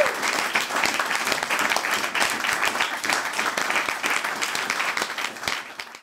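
A crowd applauding, many hands clapping steadily, then fading out near the end.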